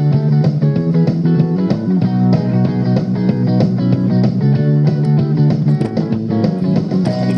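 Instrumental break in a guitar-led band song: guitars playing chords over bass, with a steady beat.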